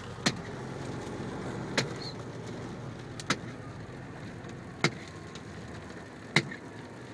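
Steady road and tyre noise inside a car driving on a wet highway in rain, with a sharp click about every one and a half seconds, five times.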